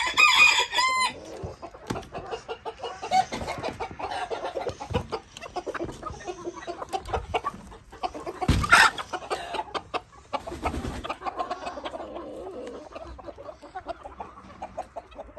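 A flock of chickens clucking and squawking busily as they are let out of the coop. There is a loud pitched call in the first second and another loud call a little past the middle.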